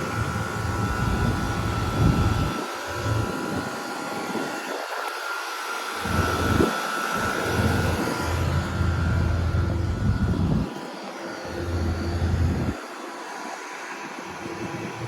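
Running split-system air conditioner condenser unit (a 2006 Carrier Gemini) with a steady mid-pitched hum over a rushing hiss. Irregular low rumbles come and go.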